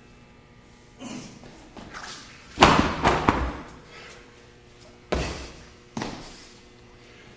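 Heavy thuds of workout equipment hitting the floor, echoing in a large room: a cluster of three or four loud impacts about two and a half seconds in, then two more single thuds about five and six seconds in.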